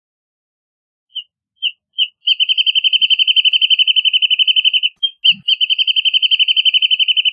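Wrentit singing: a few spaced notes that speed up into a fast, even trill held for about two and a half seconds. After a short break a second trill starts near the end.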